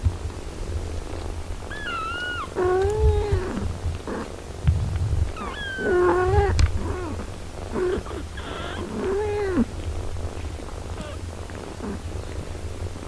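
Mother cat purring steadily while nursing her six-day-old kittens, with a run of about ten short mews over the purr that rise and fall in pitch, bunched in the middle of the stretch.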